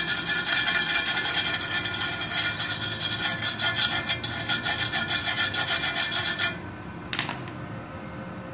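Steel wire brush scrubbed rapidly back and forth over a fresh gasless MIG weld bead on thin galvanized sheet steel, a harsh rasping scratch of many quick strokes that stops about two-thirds of the way through.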